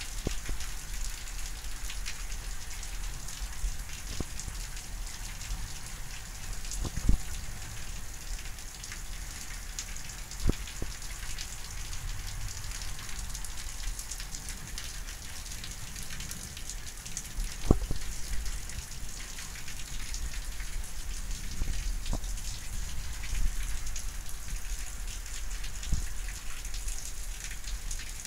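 Steady rain falling during a thunderstorm, a constant hiss with a low rumble underneath. A few sharp taps of single drops landing close by stand out, the loudest about 7, 10 and 18 seconds in.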